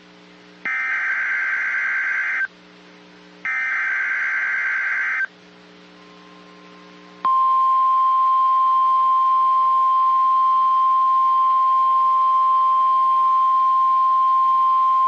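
NOAA Weather Radio emergency alert: the last two of three SAME digital header bursts, each about two seconds of rapid two-tone data about a second apart. After a two-second pause, the steady single-pitch warning alarm tone starts about seven seconds in and holds. The alert announces a severe thunderstorm watch.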